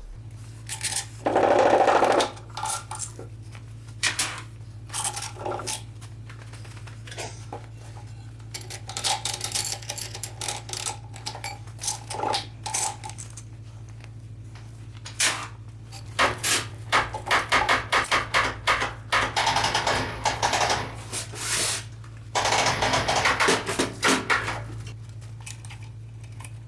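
Metal engine parts and hand tools clinking and knocking at irregular intervals, with dense runs of quick clicks in the second half, over a steady low hum.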